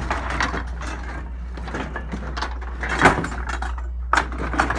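A run of knocks, clatters and scraping as hard objects are handled and moved, the loudest knock about three seconds in, over a steady low hum.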